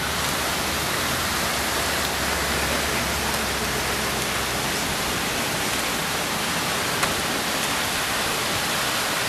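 Steady rushing hiss of water spraying from a pond fountain.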